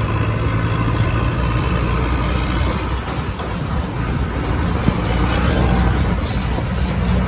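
Sonalika tractor's diesel engine running steadily under way on the road, heard from on board the moving tractor.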